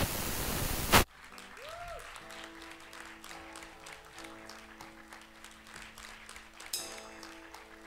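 A burst of TV-style static hiss that cuts off abruptly about a second in, then soft held musical notes at several pitches with a brief sliding tone, over faint scattered clicks like distant clapping.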